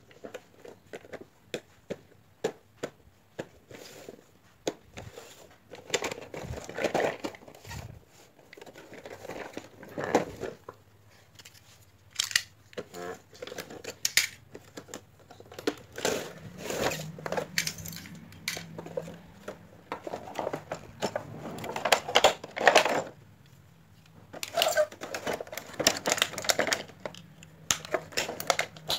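Cardboard box and clear plastic blister tray of a Beyblade set being handled and opened: irregular crinkling and crackling of the thin plastic, with sharp taps and clicks throughout.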